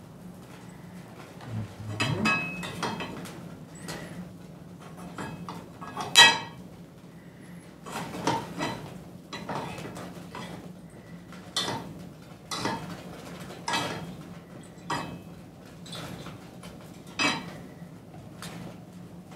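Small metal objects being handled by hand on a hard surface: a string of irregular clinks and knocks, the loudest about six seconds in, over a steady low hum.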